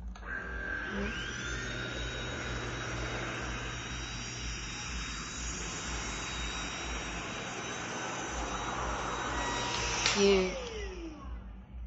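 A FABULETTA cordless stick vacuum's brushless motor switches on, its whine rising to a steady high pitch within about a second. It runs steadily while sucking up spilled protein powder, then is switched off about ten seconds in, the whine falling away.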